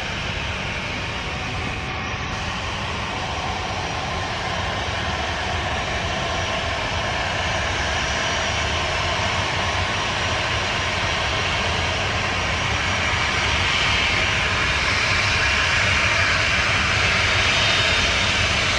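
Boeing 737 jet engines running at taxi power: a steady whine and hiss over a low rumble as the airliner taxis. The sound grows louder over the last several seconds as the jet turns toward the listener.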